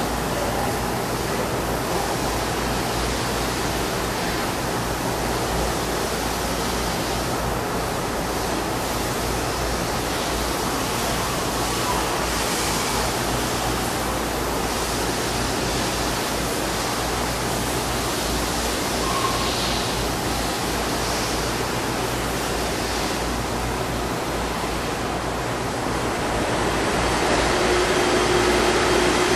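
Steady hiss and hum of a gear measuring machine running while its stylus probe gauges the teeth of a helical gear. Near the end a steady tone comes in and the sound grows a little louder.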